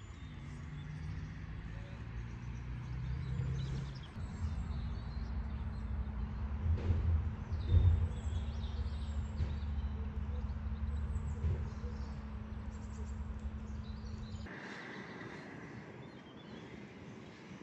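A steady low rumble with faint bird chirps over it; the rumble swells in the middle and cuts off suddenly near the end.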